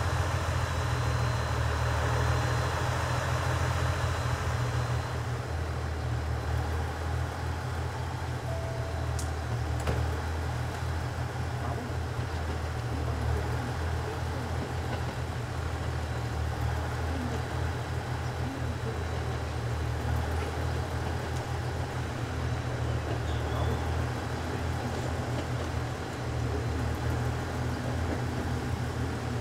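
HC85 hybrid diesel-electric train idling while stopped, its onboard diesel generator engine giving a steady low hum.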